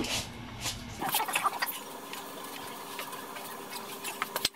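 Light, irregular clicks and taps of tools and parts being handled, over a faint steady hum.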